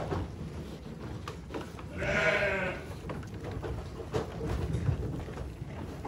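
Icelandic sheep chewing and rustling hay at a feeder, with one sheep bleating once about two seconds in, for under a second.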